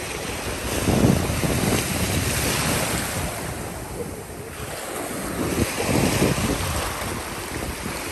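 Small sea waves washing in and foaming over a shallow sandy beach, with wind buffeting the microphone. The surge swells about a second in and again around six seconds.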